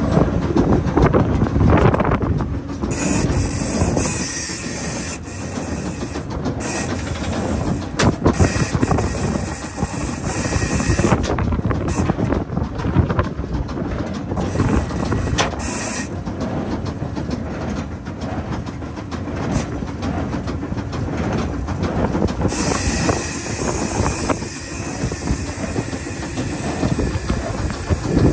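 Baler running, its mechanism clattering and knocking continuously.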